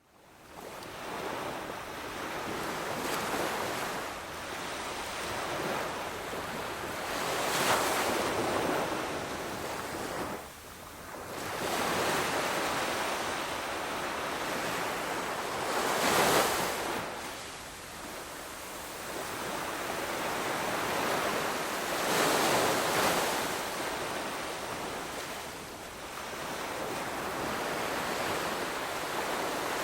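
Ocean surf: waves rolling in and breaking as a continuous rushing wash that swells and ebbs every several seconds, with the biggest surges about 8, 16 and 23 seconds in.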